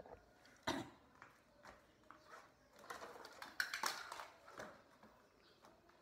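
Scattered light knocks and rattles of handling as a wooden box holding a desk telephone is picked up, busiest about three to four seconds in.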